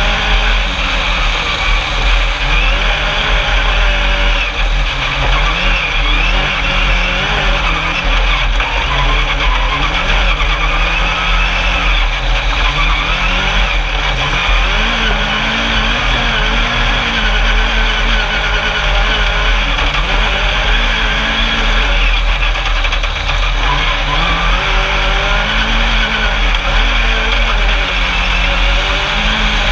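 Engine of a single-seat Class 10 off-road race buggy heard from onboard, revving up and down repeatedly as it is driven hard over sand tracks, under a continuous rush of noise.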